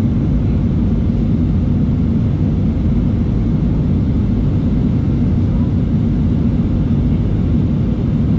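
Airbus A319 cabin noise after take-off: a steady, even low rumble of the jet engines and airflow, with no change in level.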